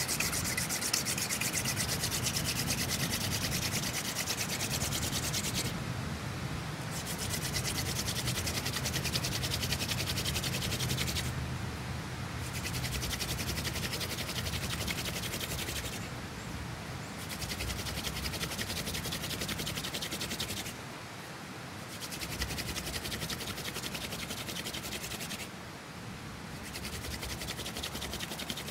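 Hand drill friction fire: a mugwort (Artemisia vulgaris) spindle spun between the palms, grinding into a wooden hearth board to build up heat for an ember. The steady rubbing breaks off for about a second roughly every five seconds as the hands go back to the top of the spindle, five times in all.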